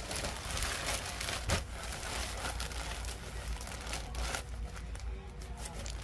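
Black plastic mailer bag crinkling as it is handled, with a few sharp crackles near the end.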